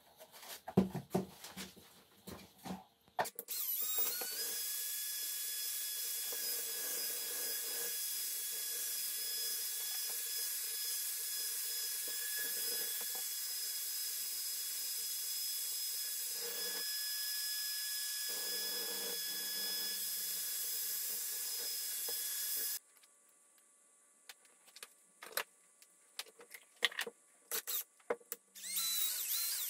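Electric drill spinning a stirring rod in a plastic cup of epoxy resin, running at a steady speed with a thin whine for about nineteen seconds before cutting off suddenly. Clicks and knocks of handling come before and after it, and the drill starts again near the end.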